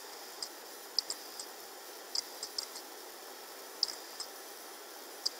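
Light, sharp clicks at the computer, about a dozen scattered irregularly, some in quick pairs, over a steady faint hiss.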